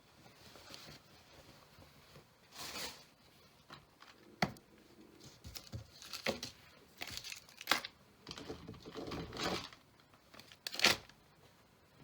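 Packaging being handled: irregular bursts of crinkling and tearing, with a few sharp clicks, the loudest burst near the end.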